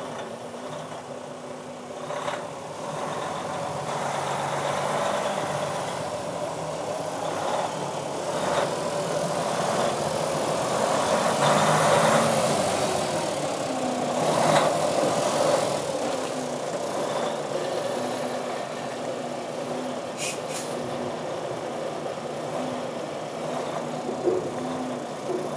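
A Freightliner Cascadia day cab tractor's diesel engine idling steadily, growing louder toward the middle and easing off again, with a few short knocks.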